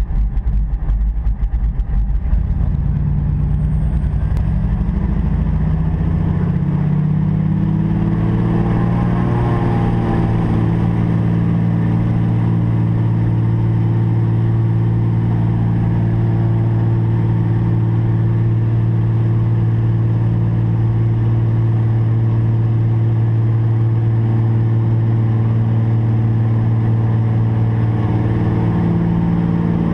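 The DHC-2 Beaver's Pratt & Whitney R-985 nine-cylinder radial engine and propeller running, heard from inside the cabin. The engine note climbs over the first ten seconds or so, then holds steady and loud.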